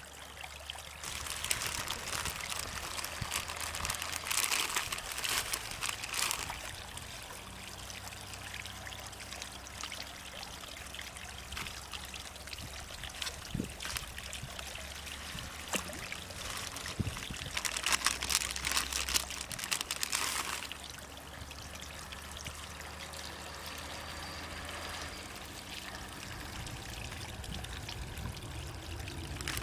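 Water trickling and pouring into a garden pond, steady throughout, with two louder spells of pouring: one early and one about two-thirds of the way through.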